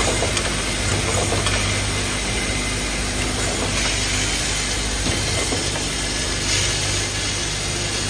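Automatic buckle assembly machine running steadily: a constant mechanical hum with hissing air and faint, scattered clicks from its stations.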